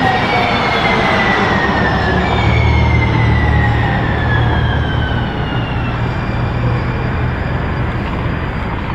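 UTA TRAX light rail train passing and moving away, its electric motor whine sliding slowly down in pitch over a steady low rumble.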